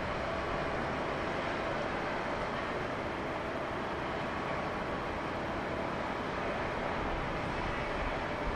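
Steady shipyard ambience from afar: an even hum and hiss with no distinct knocks or events.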